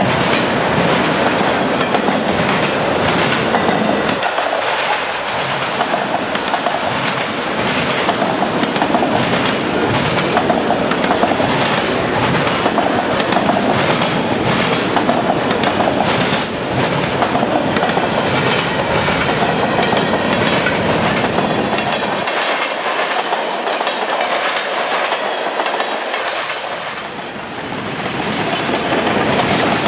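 Florida East Coast Railway freight train's cars rolling past, their wheels clicking over the rail joints in a steady run of clacks.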